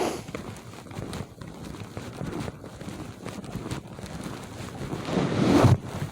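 Crunching footsteps in snow, a scatter of short irregular crunches, with a louder rustling burst near the end.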